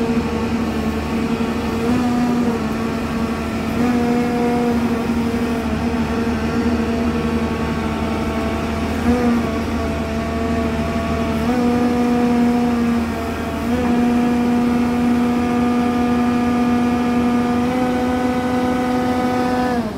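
Hyundai R215L excavator's diesel engine and hydraulic system running under load while the boom is raised and lowered; the tone steps up and down several times as the hydraulic controls are worked. The boom is lifting again now that its stuck control-valve spool has been cleared.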